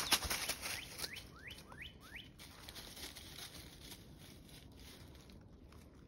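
Footsteps crunching through dry fallen leaves, fading out within the first second. A bird then gives four quick rising chirps, about a second in. Only a few faint rustles and clicks follow.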